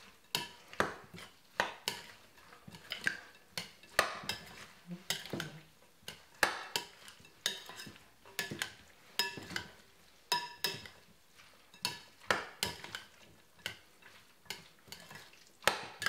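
A spoon stirring a mixture in a bowl, knocking and scraping against the bowl in a steady run of irregular clinks, about two a second.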